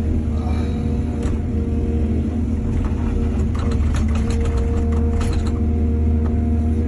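Excavator's diesel engine running steadily under load, with a cluster of clattering knocks from about three to five and a half seconds in.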